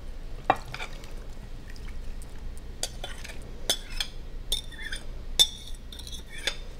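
Sliced apples in juice being tipped and scraped out of a glass mixing bowl into a stoneware baking dish with a metal spoon. There are wet sliding sounds and a run of sharp, ringing clinks of metal and glass.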